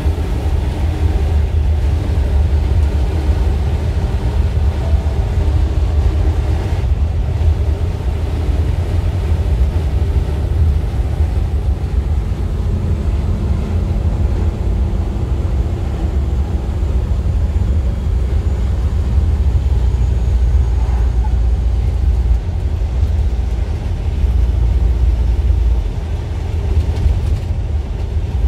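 Steady low rumble of a truck's engine and tyres on the road, heard inside the cab while driving along at a constant speed.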